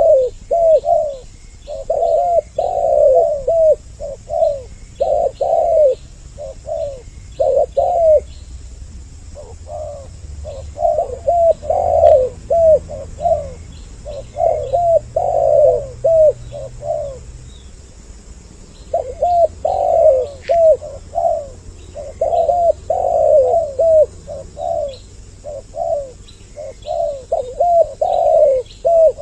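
Spotted doves cooing, a male and a female calling back and forth in repeated phrases of coos, with a couple of short pauses between bouts.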